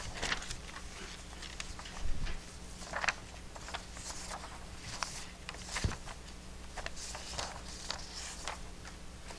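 Faint, scattered rustles and light clicks of someone handling material to show on a projector, over a steady low hum.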